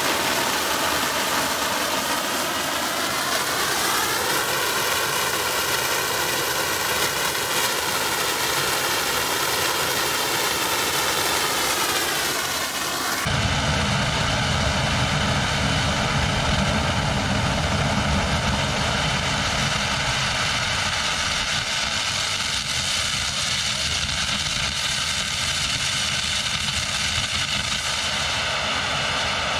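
Large leaf-blower-fed rocket casting burner firing steadily: the rush of the flame mixed with the blower's whine, which rises in pitch about four seconds in. About thirteen seconds in the sound cuts abruptly to a deeper, heavier rumble of the same burner at full thrust, very loud at about 98 dB.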